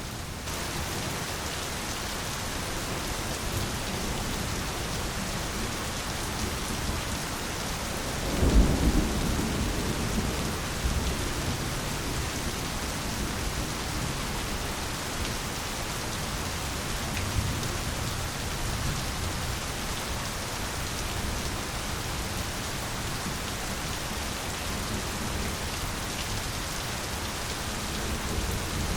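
Steady heavy rain, with a roll of thunder rumbling up about a third of the way in and dying away over a couple of seconds.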